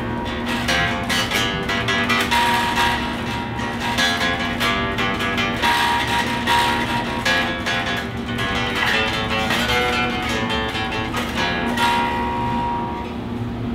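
Two electric bass guitars plucked together, playing a steady tune with quick picked notes over a held low note.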